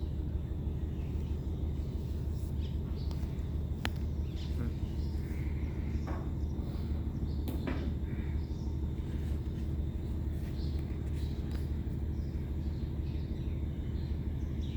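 Steady low engine rumble, like a running diesel engine, with two sharp clicks about four and seven and a half seconds in.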